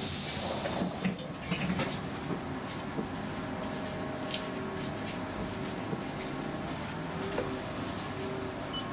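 Inside a standing Göteborg M31 tram: a short hiss of air right at the start, then the tram's steady hum with a few light knocks.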